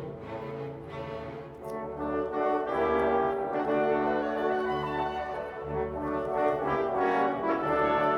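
Gentle instrumental background music with sustained melodic notes, growing louder about two seconds in.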